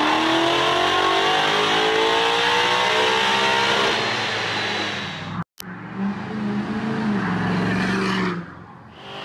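Car engine pulling at full throttle on a chassis dyno, its pitch climbing steadily for about five seconds. Then a sudden cut to another vehicle's engine running at a steady pitch, which fades out near the end.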